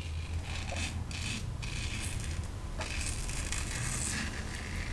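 Merkur 34C closed-comb double-edge safety razor with a Treet Carbon blade cutting stubble through shaving-cream lather. It makes a series of short scraping strokes during the across-the-grain pass.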